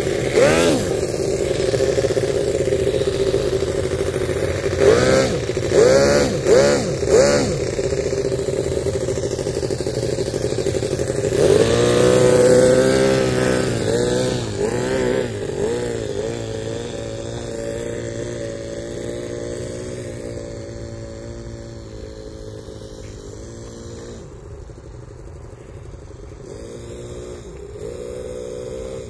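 Miniature four-cylinder gas engine of a radio-controlled 6x6 truck running, revved in several short bursts and then in one longer rev about twelve seconds in. It then fades steadily as the truck drives off into the distance.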